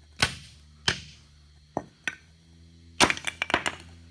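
Hammer striking the seal on a Ford Super Duty front hub assembly to knock the vacuum 4x4 seal off: four sharp metal blows under a second apart, then a quick run of ringing metallic clanks about three seconds in.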